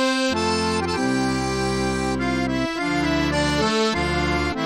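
Instrumental background music: held chords over a bass line whose note changes every second or so. No firework bangs are heard.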